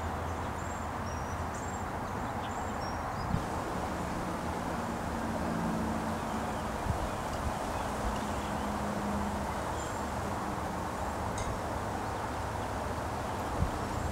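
Steady outdoor ambient noise with a faint low hum, faint high chirps during the first few seconds, and a couple of brief soft knocks.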